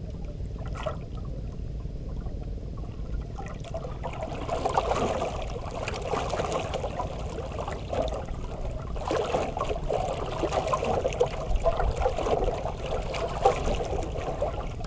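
Water sloshing and lapping against the hull of a small banka, becoming louder and busier about four and a half seconds in.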